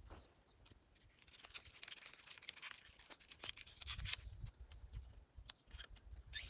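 Thin bamboo tie strip scraping and rustling as it is pulled tight and twisted around a bamboo post and plastic pipe, with many small dry clicks; loudest from about one second to four seconds in.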